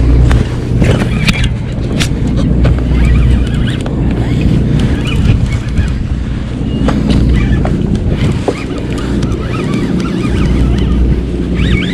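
Sportfishing boat's engine running steadily, with wind buffeting the microphone and a few light clicks and knocks on deck.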